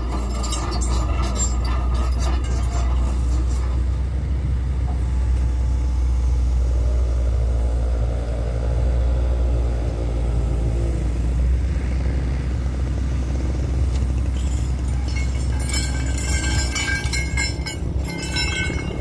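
Excavator's diesel engine running steadily, with a whine that rises and falls about halfway through as the machine works the sleeper-laying frame. Near the end, metal chains and the lifting frame clink and clatter as the concrete block sleepers are set down on the ballast.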